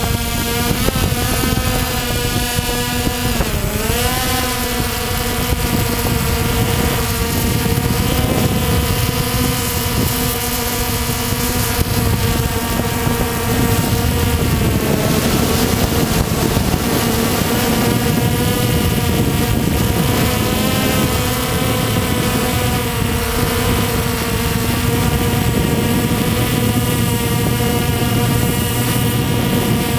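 Walkera TALI H500 hexacopter in flight: its electric motors and propellers give a steady, loud whine. The pitch dips and rises again about three to four seconds in as the throttle changes.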